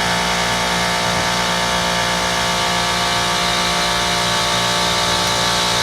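Bard wall-mount heat pump running in cooling mode, its Copeland scroll compressor giving a steady hum with many fixed tones under an even rush of air.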